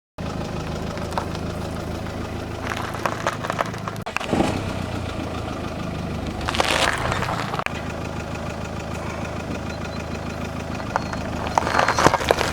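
Car engine idling with a steady low hum as the tyres roll over objects. Four bursts of crunching and crackling come as the objects are crushed under the tyres.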